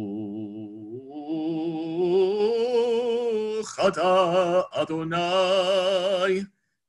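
A cantor's solo male voice singing a High Holiday liturgical melody unaccompanied, holding long notes with a wide vibrato. The pitch steps up about a second in, there are two short breaks for breath in the middle, and the singing stops shortly before the end.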